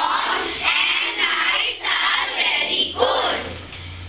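Group of children's voices singing in unison, high-pitched, dying away about three seconds in over a faint steady low hum.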